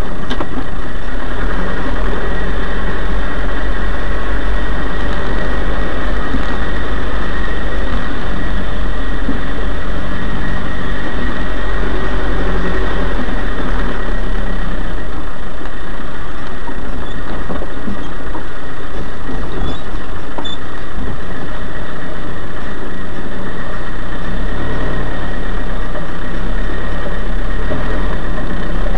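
Off-road 4x4 engine running steadily as the vehicle drives over rough dirt ground, loud on the onboard camera's microphone.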